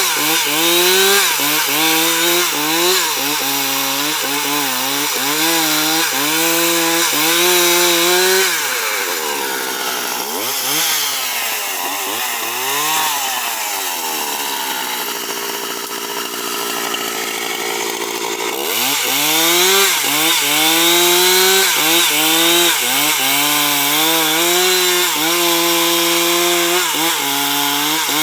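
Stihl two-stroke chainsaw running at high revs while cutting along a log to saw planks, its note dipping and recovering under load. About eight seconds in, the revs drop and waver up and down for around ten seconds before it goes back to full throttle and cuts again.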